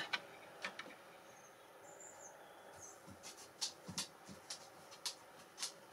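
Quiet handling at an overlocker: a scatter of faint light clicks and ticks from metal tweezers and fingers working at the needle and presser foot while the left needle is threaded, coming more often in the second half. A few faint high chirps sound about a second and a half in.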